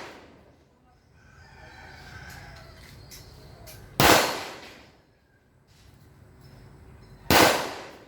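Two gunshots about three seconds apart, each trailing off over about half a second.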